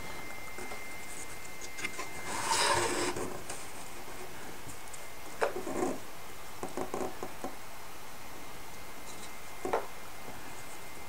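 Light handling sounds of a plywood model boat hull and its false transom: a brief rubbing scrape about two to three seconds in, then scattered soft clicks and taps, one more near the end.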